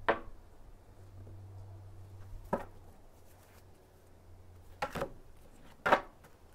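Tarot cards being handled: four short, sharp taps spread over a few seconds, over a faint steady low hum.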